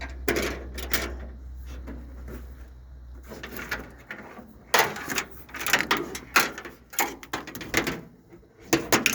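Hand-work clatter as a hood release cable is routed and handled: a run of short clicks, rattles and knocks, louder and more frequent in the second half, over a low hum that stops about four seconds in.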